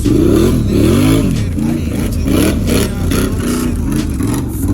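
Off-road vehicle engine running under load, its pitch rising and falling again and again as the throttle is worked while riding.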